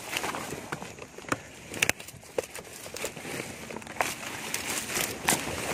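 Leaves and twigs rustling and crackling as someone pushes through dense undergrowth, brushing against clothing close to the microphone, with irregular sharp snaps and footsteps on dry leaf litter.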